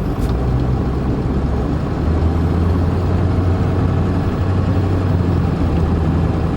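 Vehicle engine running with a steady low hum, which grows stronger about two seconds in.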